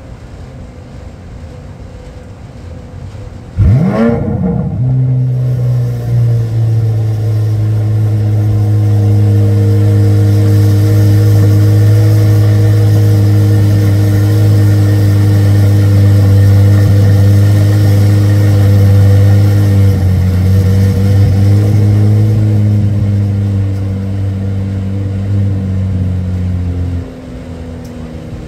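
A car engine starts about four seconds in, catching with a quick rev, then idles loudly and steadily before shutting off near the end.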